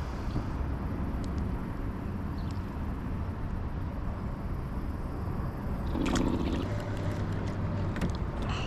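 Steady low outdoor background rumble, with a few faint clicks and a brief louder sound about six seconds in.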